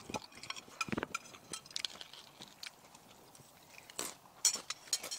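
Eating sounds: spoons tapping and scraping against bowls, with crunchy chewing of toasted sesame rice crackers, as scattered soft clicks and crunches, a little louder about four seconds in.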